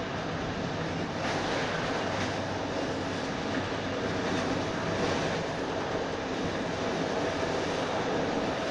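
Train running at speed along the track, heard from inside the carriage: a steady rumble of wheels on rail with a faint low hum and a few faint knocks.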